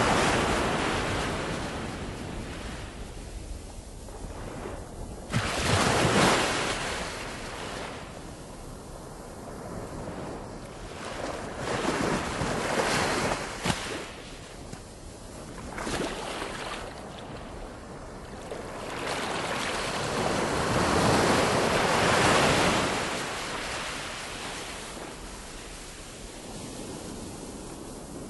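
Ocean surf: waves breaking and washing in, the rush swelling and fading every few seconds, with some wind.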